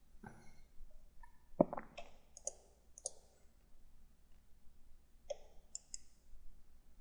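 Computer mouse clicking: about eight faint, irregularly spaced clicks, the loudest about one and a half seconds in.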